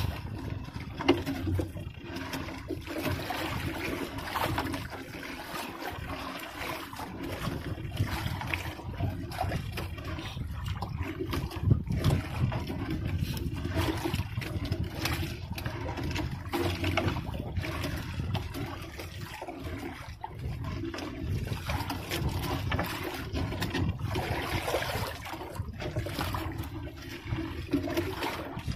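Wet sinking fishing net being hauled by hand into a small boat. Water trickles and splashes off the mesh, with scattered light knocks throughout.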